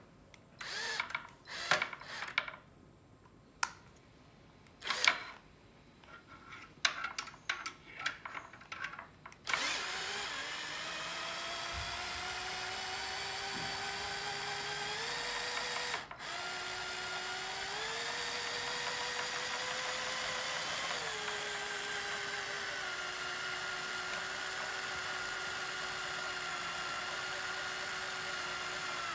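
Power drill turning a scissor jack's screw through its crank rod, its motor whining steadily as the jack lifts the footrest board. The whine shifts in pitch a few times and cuts out once, briefly, past the middle. A handful of sharp clicks and knocks come before the drill starts.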